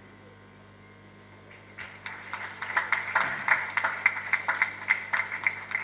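An audience applauding, starting about two seconds in: many irregular hand claps.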